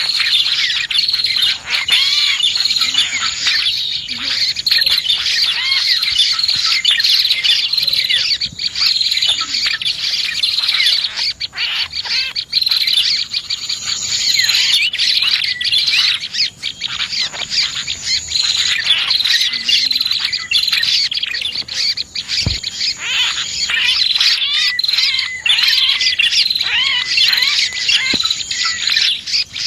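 Dense, unbroken chorus of rapid high chirps and trills from prenjak (prinias) and other small birds: a lure call used to draw small birds in.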